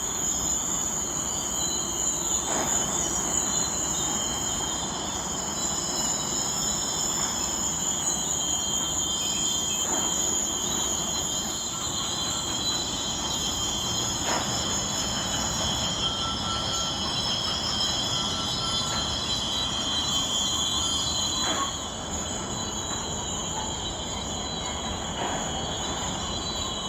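CSX rail train unloading new rails with a loud, continuous high-pitched screeching of several tones held together, over a rumbling run of the train, with a faint knock every few seconds.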